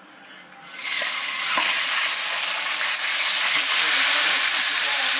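Cubed raw chicken breast going into a hot oiled frying pan: a frying sizzle sets in about a second in and grows louder, then holds steady, with a couple of light clicks as pieces drop in.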